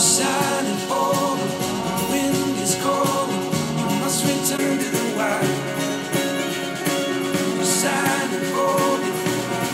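A pop-rock song with a singer, played through a pair of Wavemaster Cube Mini Neo desktop speakers and picked up by a microphone in the room; partway through, playback switches to a pair of Audioengine A2+ speakers.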